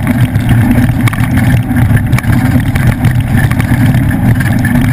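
Ford off-road race truck's engine running hard, a loud, steady low rumble mixed with rough, fluttering road and wind noise.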